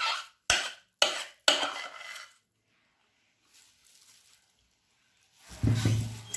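Kitchen utensil clinking against a dish four times, about half a second apart, as walnut toppings are put on a cake, then a longer clatter of handling near the end.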